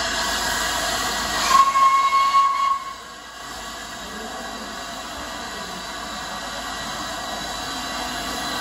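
Steam locomotive 60103 Flying Scotsman hissing steam, then giving one short, steady, single-pitch blast on its steam whistle about a second and a half in. The hiss and whistle stop together about a second later, leaving a quieter steady background.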